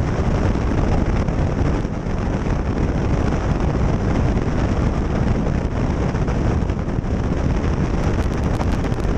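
Steady drone of a Cessna 152's four-cylinder Lycoming engine and propeller, heard inside the cockpit, in level cruise with the RPM set a little lower.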